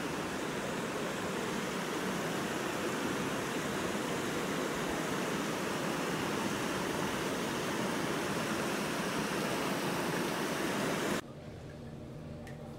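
Creek water rushing steadily over rocks. About eleven seconds in it cuts off suddenly to the quieter sound of a small room with a few faint drips.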